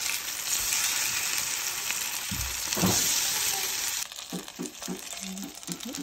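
Grated pumpkin fritters sizzling in hot oil in a frying pan as they are turned by hand, with a thump near the middle. The sizzling cuts off abruptly about two-thirds of the way through.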